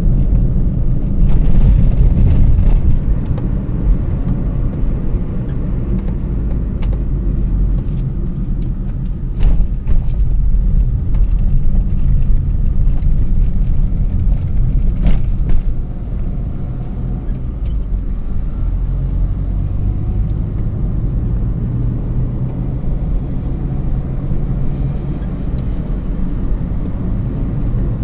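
Engine running with a steady low rumble, with scattered sharp knocks and clatters, the clearest ones about ten and fifteen seconds in.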